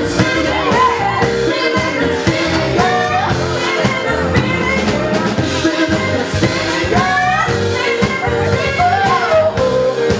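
Live band playing a song: singing over electric guitar and drums.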